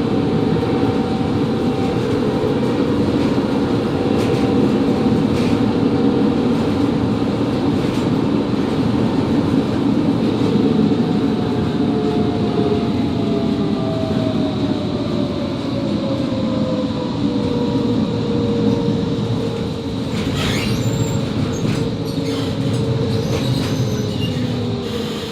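Končar TMK 2200 low-floor tram running on its rails: a steady rumble of wheels on track with the traction drive's whine, which falls in pitch through the second half as the tram slows. A brief clatter about twenty seconds in.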